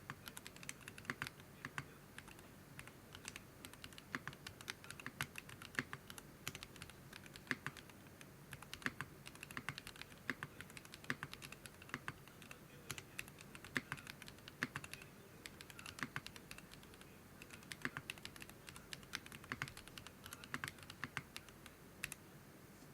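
Typing on a Geonworks F1-8X mechanical keyboard with Zaku switches, a 1mm aluminium plate and PBT keycaps: irregular keystrokes, several a second, stopping near the end.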